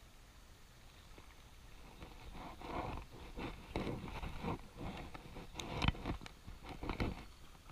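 Handling noise from a spinning rod and reel: rustling and scraping with several sharp clicks, starting about two seconds in and growing more frequent toward the end.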